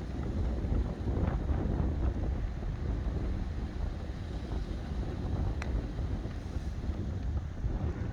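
Wind buffeting the microphone, a steady low rumble, with one short click about five and a half seconds in.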